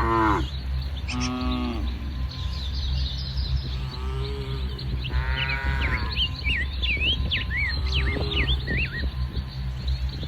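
Cattle mooing several times, the loudest calls near the start and about five seconds in, with fainter ones between. Birds chirp in the second half over a steady low hum.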